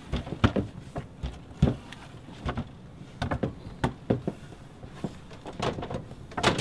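Repeated, irregular banging and thumping on a wooden door, a few knocks a second.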